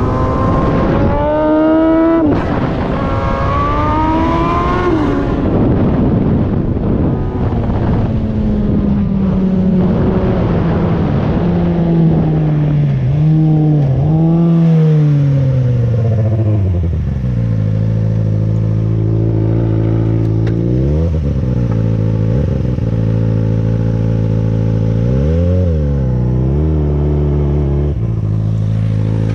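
Kawasaki ZX-6R 636 inline-four engine in a Honda TRX450R ATV revving up with two quick gear changes, then winding down until it settles into a steady idle about halfway through. Two short throttle blips rise and fall during the idle.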